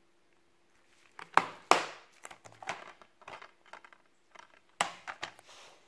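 Plastic DVD case being snapped shut: two sharp clicks about a second and a half in, then smaller rattles and crinkles as the case is handled, and another quick group of clicks near the end.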